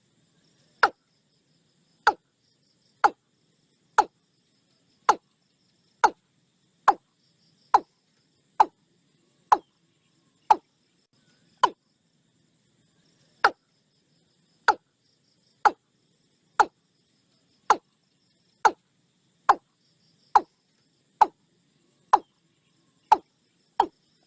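A sharp knock or click repeated about once a second, evenly spaced, with one longer gap about halfway through.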